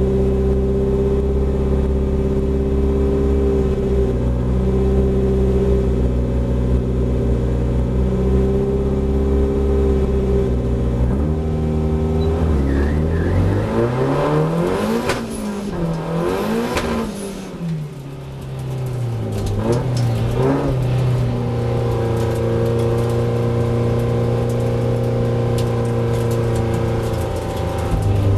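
Datsun 1600 race car's four-cylinder engine heard from inside the cabin, held at steady revs on the start grid, then revved up and down a few times in the middle before settling back to a steady held note.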